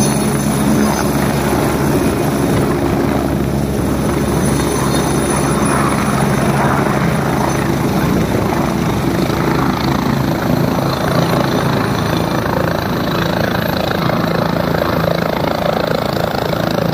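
Helicopter rotor and turbine running loud and steady as it lifts off from the helipad and flies away.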